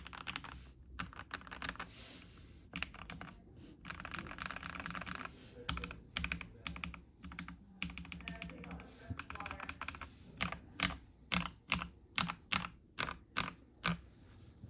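Mechanical keyboard typing: linear Gateron Milky Yellow switches in a KBD67 Lite R3 with a polycarbonate plate and PBT keycaps, tape-modded and packed with foam for a deep, thocky sound. Quick runs of keystrokes give way, from about ten seconds in, to separate louder key presses about two a second.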